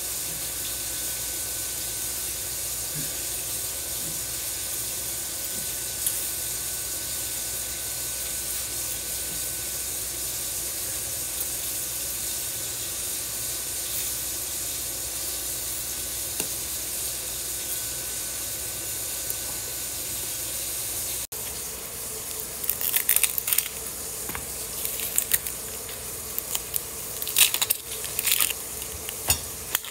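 Kitchen tap running steadily into a stainless steel sink as a tomato is rinsed under it. About 21 seconds in the water stops abruptly, and scattered crackly rustles of dry onion skin being peeled by hand follow.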